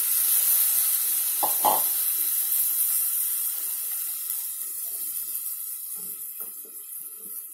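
Onion-tomato masala in hot oil in a pressure cooker sizzling as sprouts are tipped in: a loud hiss at first that gradually dies down, with a few light knocks from the food and ladle.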